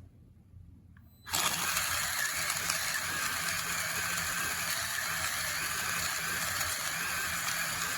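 Electric burr coffee grinder switching on about a second in and then running steadily, with a loud, even mechanical whirr.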